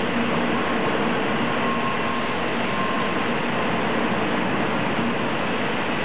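N700 series Shinkansen train running past the platform as it pulls away from a stop. A steady rushing noise with faint steady tones underneath.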